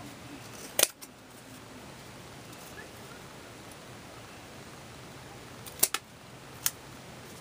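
Scissors snapping shut on paper in short, sharp clicks: once about a second in, then two close together and one more near the end.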